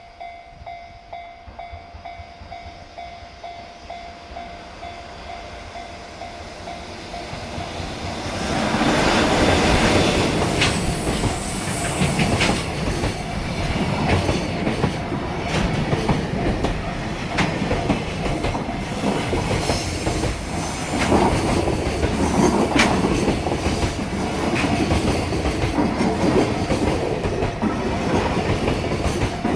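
A level crossing alarm ringing with a steady, even beat, then about eight seconds in a JR Freight EF66 electric locomotive hauling container wagons arrives and passes close by. Its wheels clatter loudly and continuously over the rail joints.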